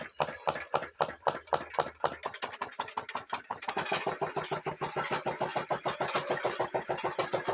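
Home-built hot air Stirling engine locomotive with diaphragm pistons running along the track under its own power, a fast, even mechanical beat of about six to seven knocks a second from the engine and its linkages. The beat quickens slightly about halfway through.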